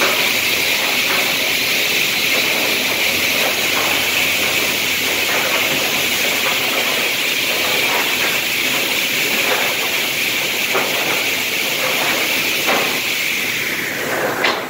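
LimTek Retro C component saw running: a loud, steady whirring hiss from its spinning circular blades and drive, with occasional light clacks from the chain live deck. The hiss falls away near the end.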